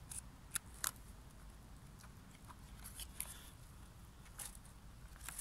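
Faint, scattered crackles and ticks of a hardcover book being opened and its pages handled as it lies on dry fallen leaves.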